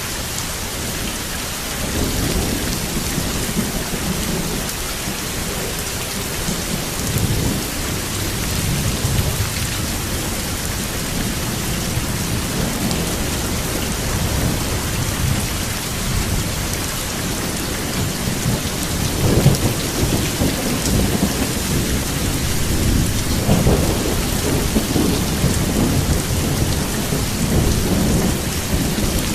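Steady rain falling, with thunder rumbling low underneath that swells several times, most strongly about two-thirds of the way through.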